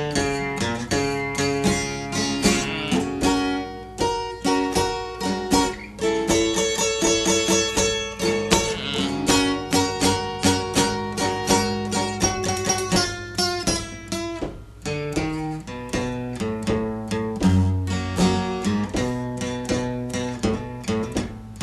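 Blues guitar music: an instrumental passage of quick plucked notes with no singing.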